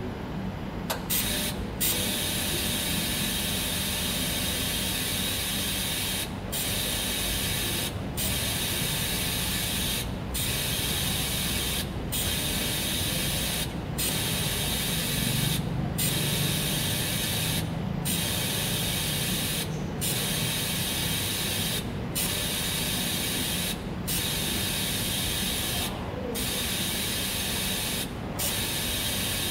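Gas tungsten arc (TIG) welding on a 316 stainless steel tube: the arc hiss comes in about a second in and holds steady, with short dips roughly every two seconds.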